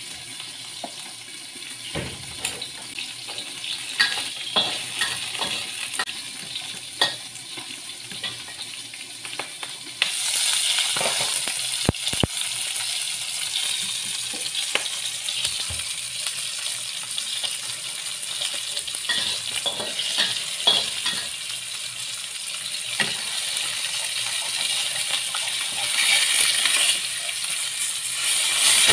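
Oil sizzling in a wok as chopped chillies and spices are stir-fried, with a metal spatula clicking against the wok. About ten seconds in the sizzle becomes louder and steadier, a whole tilapia frying in oil in a second wok.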